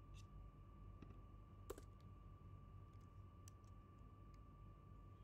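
Near silence: room tone with a faint steady hum and a few faint clicks as a computer is worked. The loudest click comes about one and a half seconds in.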